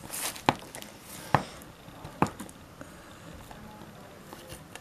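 A fingernail picking at a plastic tape seal on a cardboard toy box: a brief crinkle, then three sharp clicks and snaps, each a bit under a second apart.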